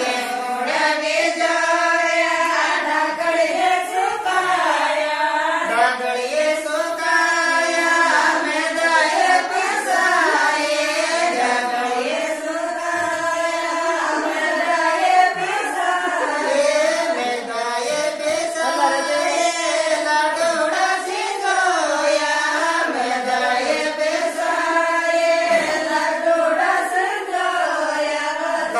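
Women singing a Hindi/Rajasthani desi wedding folk song (samdhi-samdhan vivah geet) together, a single melody in long, wavering phrases that run on without pause.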